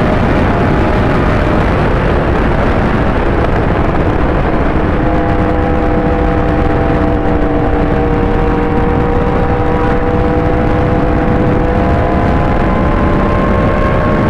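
Yamaha R1 inline-four engine holding a steady speed under a loud rushing noise. Its pitch comes through clearly from about five seconds in and climbs slowly near the end.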